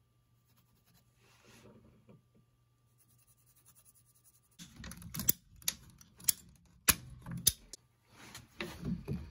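Faint scratch of a pencil marking a PVC pipe, then rustling handling noise with several sharp plastic clicks and knocks as the PVC pipe, fittings and ball valve are handled.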